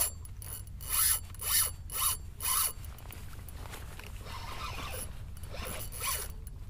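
Spinning reel buzzing in four short zipping bursts about half a second apart as a hooked fish pulls against the bent rod.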